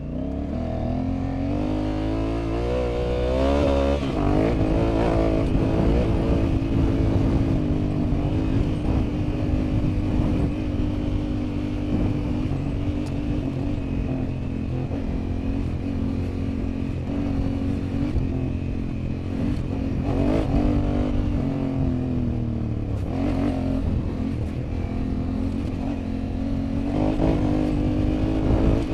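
Honda Africa Twin motorcycle engine under way. It revs up through the gears over the first few seconds, then holds a steady cruise, easing off and picking up again about two-thirds of the way in and once more near the end.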